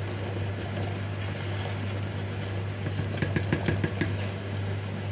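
Wooden spoon stirring thick millet porridge in a saucepan, with a quick run of knocks and scrapes against the pot from about three seconds in. A steady low hum runs underneath.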